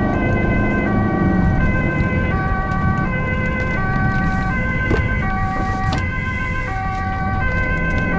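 Ambulance two-tone siren alternating between a high and a low pitch, heard from inside the ambulance over a steady low engine and road rumble.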